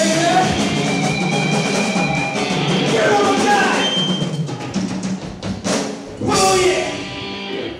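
Live glam metal band of electric guitars, bass and drum kit playing the closing bars of a song, with sharp drum hits and cymbal crashes near the end and a final chord left ringing.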